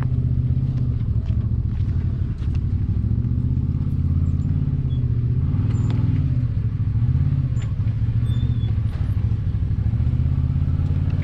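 Side-by-side UTV engine running at low speed as it crawls over rock ledges, its pitch rising and falling over and over as the throttle is eased on and off. A few faint clicks and knocks sound now and then.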